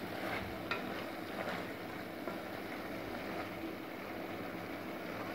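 Chicken pieces frying in oil in a stainless steel kadai with a steady sizzle, while a wooden spatula stirs them, with a few light scrapes against the pan in the first second and a half.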